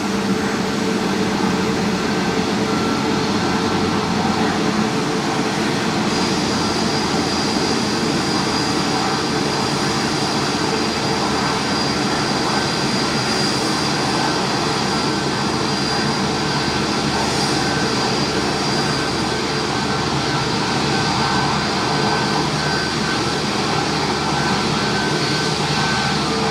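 Jet airliner engines running steadily, with a high whine that sets in about six seconds in.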